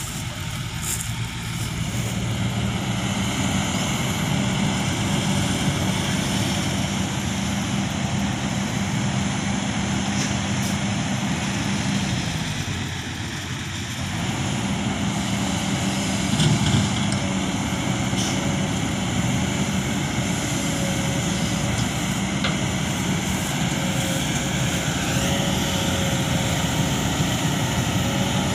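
A Kobelco SK200-8 hydraulic excavator's diesel engine runs steadily under hydraulic load as it digs and swings soil. The engine eases off briefly twice, just after the start and about twelve seconds in. There is a single thump partway through.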